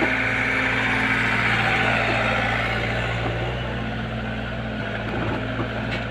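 Excavator's diesel engine running steadily as the arm swings and dumps a bucket of clay mud, with a higher whine over it that eases off about halfway through.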